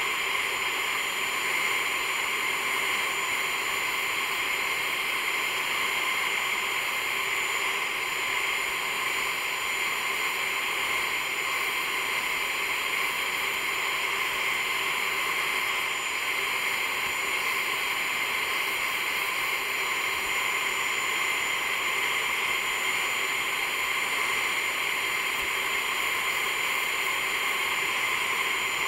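A lathe-driven abrasive disc sanding a juniper spatula, a steady whirring hiss with a constant hum running through it.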